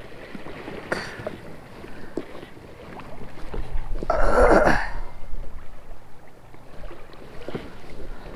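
Choppy lake water slapping against a kayak hull, with scattered small knocks and a louder rush about four seconds in.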